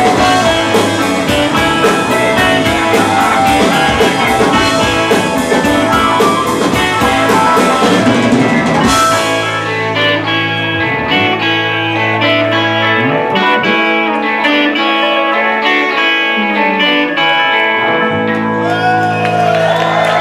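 Live rock band with electric guitars, bass and drums playing loud. About nine seconds in the drum beat stops on a crash, and the guitars and bass ring on with held notes and sliding bends.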